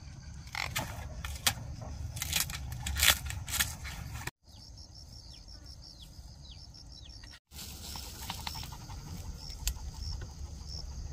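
Crackling and rustling of taro corms, stems and leaves being handled and the soil broken off them, over a low wind rumble. In a quieter stretch a bird calls about five times, each call a short falling whistle. Then the crackling and rustling start again.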